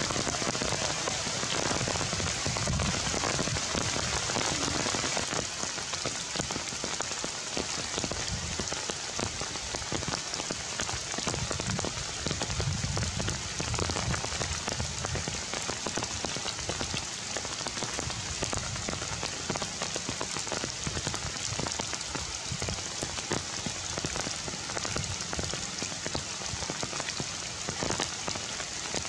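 Steady rain falling on forest foliage: an even hiss of rain dense with the ticks of individual drops striking wet leaves.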